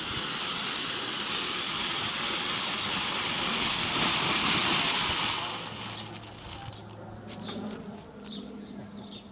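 Homemade firework fountain burning with a loud, steady hiss of spraying sparks that swells slightly, then cuts off about five and a half seconds in as it burns out.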